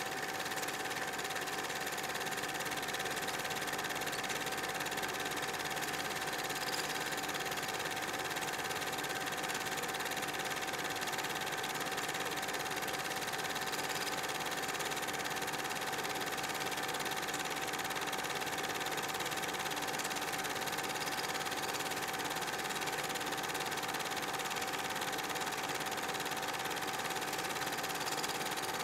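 8 mm film projector running steadily: a constant mechanical motor hum with a steady tone, unchanging throughout.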